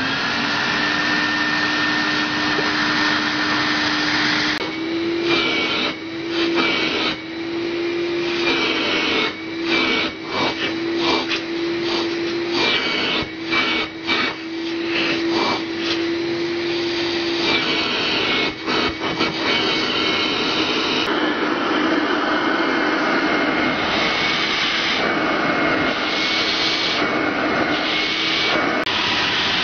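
Vacuum cleaner motors (an Electrolux Lux canister and a Vorwerk) running with their suction blocked by hand to clog them and trip the dust-bag indicator. The steady whine steps up in pitch about four seconds in, with frequent knocks and rubbing from hands at the inlet.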